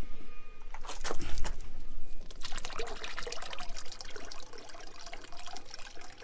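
A knock and rattle of handling about a second in, then diesel fuel trickling and splashing as it runs out of the tractor's fuel filter housing.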